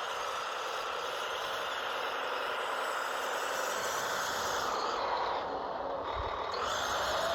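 Radio-controlled tracked snow vehicle (Kyosho Blizzard) driving, its electric motor and gear train whining with a hiss of track noise; the whine shifts in pitch with the throttle, eases off about five seconds in, then picks up again.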